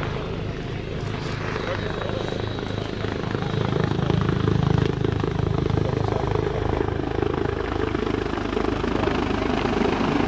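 AgustaWestland HH-139A (military AW139) helicopter in flight: the steady beat of its five-blade main rotor and the running of its twin turboshaft engines as it flies toward the listener. The sound is loudest about four to five seconds in.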